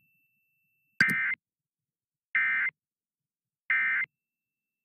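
Emergency Alert System SAME end-of-message signal: three identical short bursts of digital data tones, about one and a third seconds apart, marking the end of the alert.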